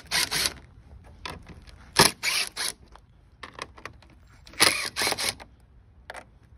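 Milwaukee cordless impact ratchet spinning 10 mm bolts loose in short bursts: three quick runs of a few pulses each, about two seconds apart, with small clicks between.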